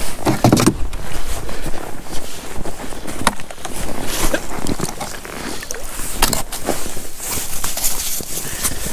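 Boots crunching in snow, with irregular rustling and knocks as gear is handled and a plastic fish-measuring board is pulled from a plastic sled.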